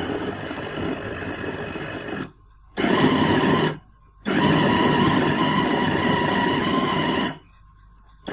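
Electric food chopper running in pulses as it minces raw meat with onion, green chillies and garlic: a run of about two seconds, a short one of about a second, a longer one of about three seconds, and a brief burst at the end, each stopping abruptly.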